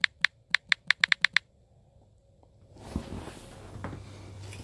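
Quick run of about nine key-tap clicks from a smartphone's on-screen keyboard as a name is typed, stopping about a second and a half in. A faint rustling noise follows for the last two seconds.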